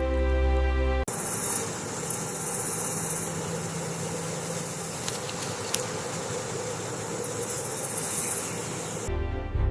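Soft background music cuts off abruptly about a second in, giving way to a steady, noisy outdoor ambience with high, pulsing insect chirring and a few faint clicks. Music returns near the end.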